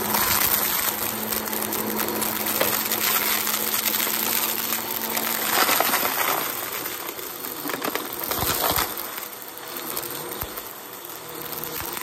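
Upright vacuum cleaner running and sucking up a thick layer of confetti from a shag carpet. The steady motor whine is overlaid by a dense crackle and clatter of confetti pieces rattling up through the machine. It grows quieter near the end as the head moves onto cleared carpet.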